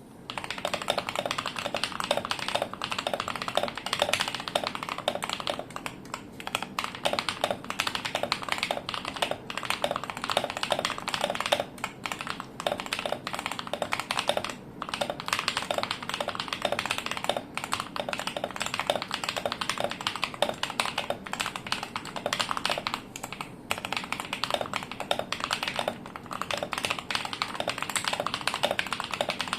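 Fast, continuous typing on a T-Dagger Bora mechanical keyboard with lubed KTT Sea Salt switches, tape-modded and foamed, under PBT keycaps: a dense stream of key clacks broken by a few brief pauses.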